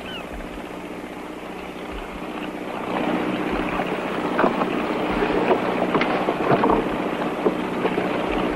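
Motorboat engine running with a steady hum, with wind and water noise; the sound grows louder about three seconds in.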